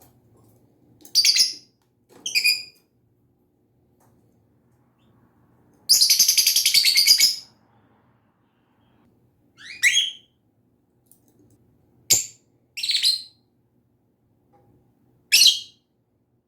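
Pet lovebird calling: short high-pitched chirps every second or two, with one longer, harsher chattering call of about a second and a half near the middle.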